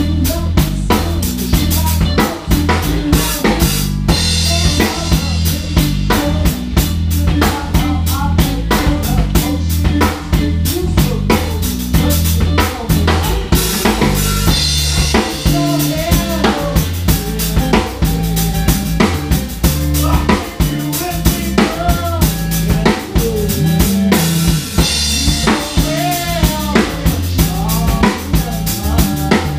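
Live rock band jamming: a drum kit played hard with kick, snare and cymbals up front, over an electric bass line and electric guitar, playing a funk-rock groove.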